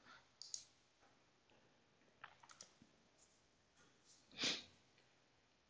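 Near silence, broken by a few faint mouse clicks and, about four and a half seconds in, one short soft noise.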